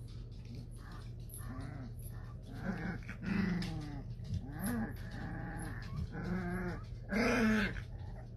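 Pit bull-type dogs, an adult and a puppy, making a series of short growly whines and yaps that arch up and down in pitch, the loudest about three seconds in and again about seven seconds in.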